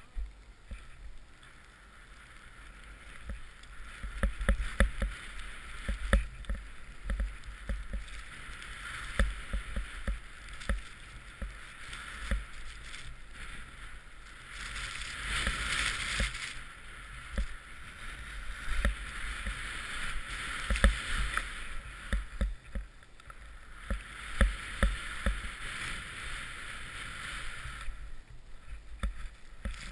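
Rushing hiss of deep powder snow spraying under a rider coming down through trees. Irregular low thumps come from the mounted action camera being jolted, and the hiss swells in stretches as the snow sprays harder.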